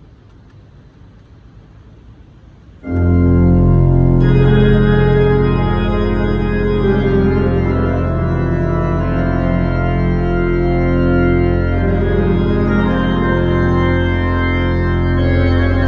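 Two-manual church organ playing full, sustained chords over a deep pedal bass. It enters suddenly about three seconds in after faint room hiss, and the chords are held long and change slowly.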